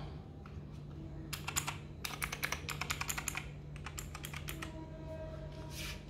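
Keys of a Keychron wireless mechanical keyboard being pressed: a quick, even run of key clicks, about eight a second, from about two to three and a half seconds in, with a few scattered clicks before and after and one sharper click near the end.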